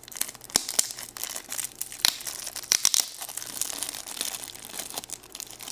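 Plastic packaging crinkling and rustling as it is handled and opened, a steady crackle of small clicks with a few sharper cracks.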